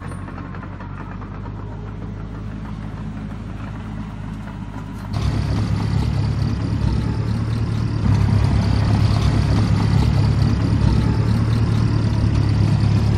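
Steady engine hum, then from about five seconds in the louder diesel engine of a crawler bulldozer working in dirt, rising again around eight seconds.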